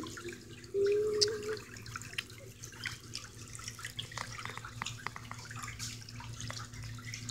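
Water churning and splashing in a pedicure spa's whirlpool foot tub, with many small splashes and drips over a steady low hum. A brief humming tone sounds about a second in.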